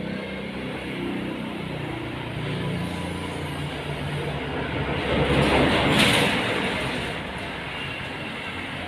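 Engine sound of a passing motor vehicle. It grows louder to a peak about six seconds in, then fades.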